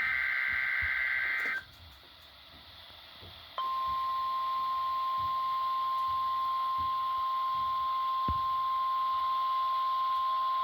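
NOAA Weather Radio alert signals. The end of a SAME digital header burst, a harsh two-tone data screech, cuts off about a second and a half in. After a couple of seconds of radio hiss, the steady 1050 Hz warning alarm tone starts and holds.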